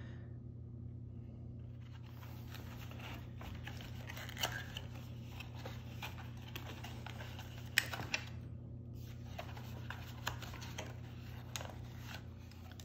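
Small hard items being handled and set into a padded zippered carrying case: scattered light clicks and rustles, with a few sharper taps around the middle. A steady low hum runs underneath.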